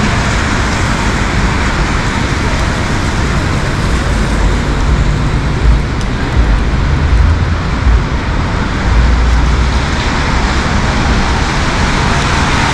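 Heavy rain and city street traffic blended into a steady wash of noise, with a louder low rumble swelling a few times in the middle.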